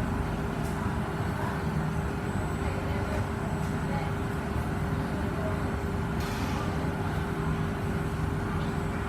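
C151A MRT train standing at the platform, its equipment humming steadily with a constant low tone, and a short hiss about six seconds in.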